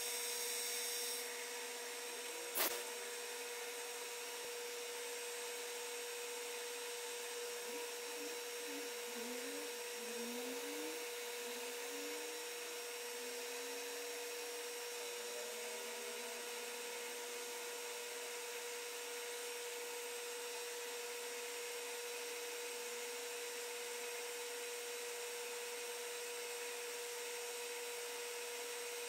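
Metal lathe running steadily with a constant hum while a brass slug is faced and then drilled. There is one sharp click about two and a half seconds in, and short sliding tones come and go near the middle.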